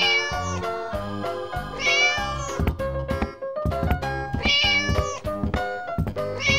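Cat meowing, one meow about every two seconds, over background music with a steady beat.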